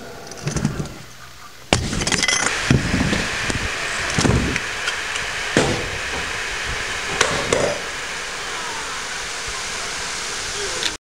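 A bicycle clanking and knocking on hard ground, with several separate metallic knocks and clinks over a steady hiss of outdoor noise.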